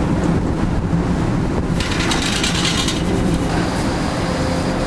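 Steady low hum and rumble of a docked car ferry's engines and machinery, with a brief hiss about two seconds in.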